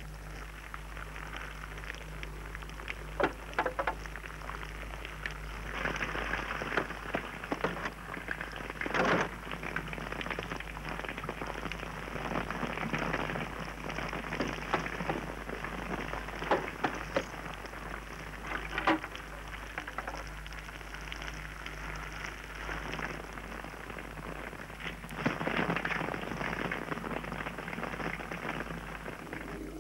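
Gunfire in a shootout: scattered sharp gunshots, some much louder than others, over a steady crackling hiss.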